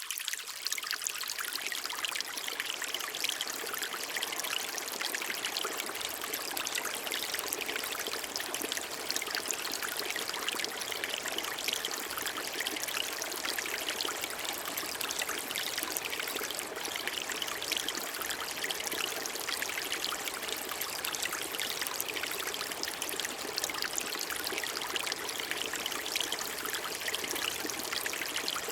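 Water trickling and splashing in a steady, dense patter of many small drops and splashes, with no pauses.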